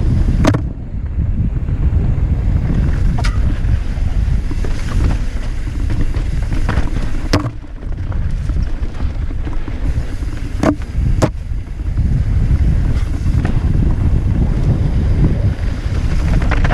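Wind buffeting the camera microphone as a mountain bike rides fast down a dirt trail, a heavy steady rumble. Several sharp clacks from the bike going over rocks and bumps, two of them close together about ten to eleven seconds in.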